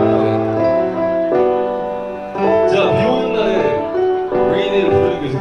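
A live song played over a PA: a piano-led backing track with held chords, and a man singing into a microphone, his voice coming in about two and a half seconds in.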